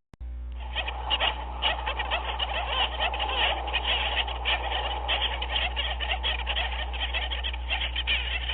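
Dense chorus of many overlapping animal calls, a constant crowded clamour over a steady low hum, cutting out for a moment just after the start.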